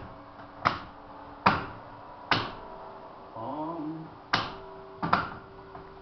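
Church tower bells rung from a lever chime stand: each pulled lever gives a sharp clunk and strikes a bell whose tone rings on. Three strokes about 0.8 s apart, a pause, then two more.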